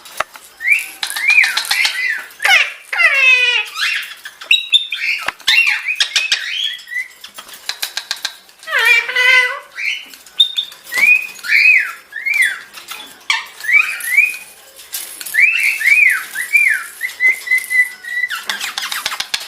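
Ringneck parrot calling: strings of short whistled chirps that rise and fall, with a few harsher squawks and scattered clicks in between.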